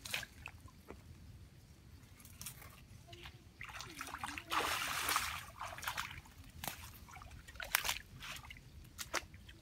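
Water sloshing and trickling in short irregular splashes, with one longer, louder splash about halfway through.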